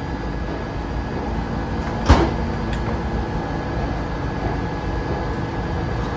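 A stopped R68 subway train humming steadily at the platform, its equipment giving a low, even drone, with a single sharp clunk about two seconds in.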